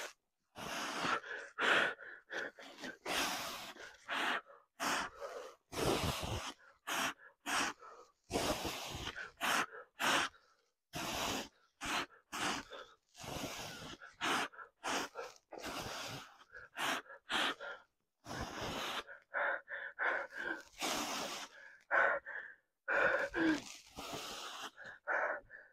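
A man breathing hard with effort during weighted squats: a long run of short, forceful breaths in and out, about one to two a second.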